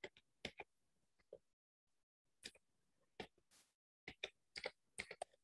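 Faint, irregular clicks of typing on a computer keyboard, with a quicker run of keystrokes near the end.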